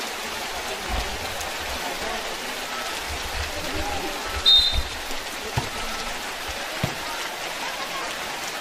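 Heavy rain falling steadily on a wet concrete court. One short, high whistle sounds about halfway through.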